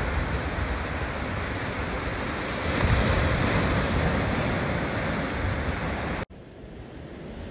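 Ocean surf breaking and washing over shoreline rocks, with wind rumbling on the microphone. The sound cuts off suddenly near the end and drops to a much quieter wash.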